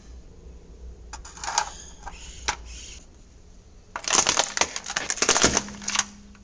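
A car tyre rolling over a plastic magnetic drawing board, the plastic crackling and snapping in a dense run of sharp cracks for about two seconds, starting about four seconds in. A few lighter clicks and rustles come before it.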